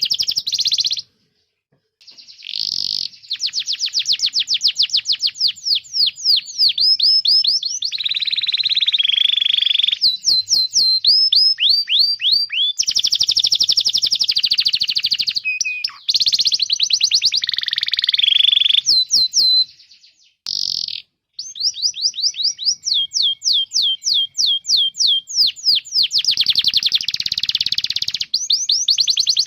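Domestic canary singing: high-pitched, rapid trills of repeated sweeping chirps alternating with buzzy rolls, with two brief breaks in the song.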